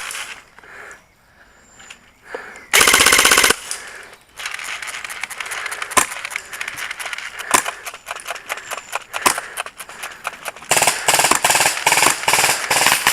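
Airsoft guns firing: a loud full-auto burst of rapid shots lasting under a second about three seconds in, then scattered single shots, then a run of rapid bursts near the end.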